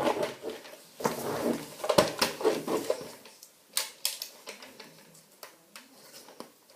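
Plastic clicking and rattling from a NERF Elite Strongarm blaster being reloaded: darts pushed into its revolving cylinder and the cylinder handled. The clicks come scattered and irregular, growing fainter and sparser after about three seconds.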